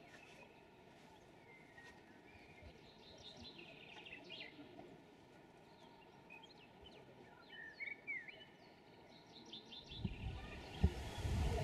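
Small songbirds chirping and trilling on and off over a faint outdoor background. Near the end a louder low rumble comes in.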